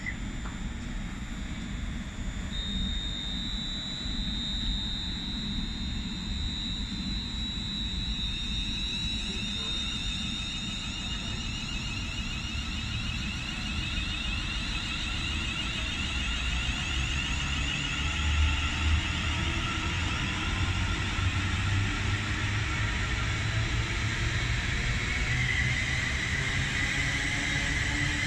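Class 350 Desiro electric multiple-unit train passing on the line. A high electric traction whine rises in pitch over a steady rumble of wheels on rail.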